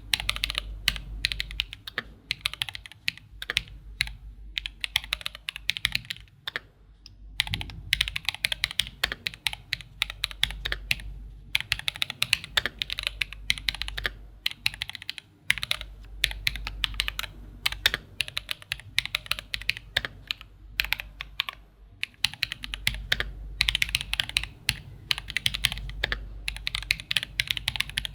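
Typing on an Angry Miao Cyberboard mechanical keyboard with Holy Panda tactile switches and GMK keycaps: quick runs of keystrokes clacking, broken by short pauses.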